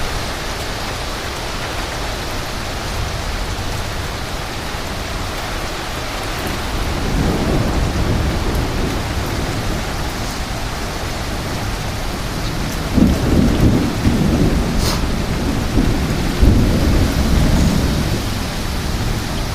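Strong wind and driving rain of a severe thunderstorm, with heavy low gusts rumbling through about seven seconds in and again for several seconds from about thirteen seconds.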